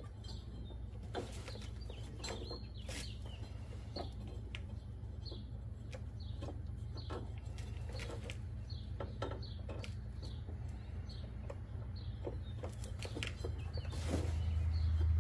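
Birds chirping over and over in short calls, with scattered sharp clicks and knocks and a steady low hum that grows louder near the end.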